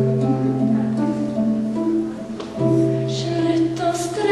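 Instrumental music: a slow, gentle tune of sustained notes over long held low notes, the second low note coming in about two and a half seconds in.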